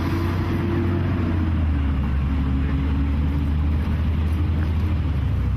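Steady low engine hum of a vehicle running, with a faint held tone that dips slightly in pitch about two seconds in.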